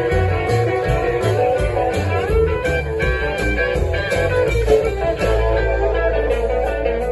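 Live blues band playing: guitar over bass and drums with a steady beat.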